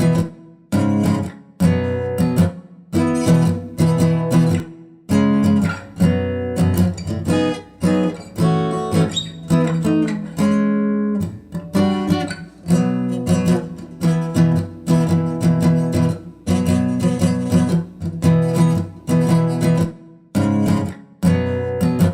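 Acoustic guitar music, strummed chords in phrases with short breaks between them.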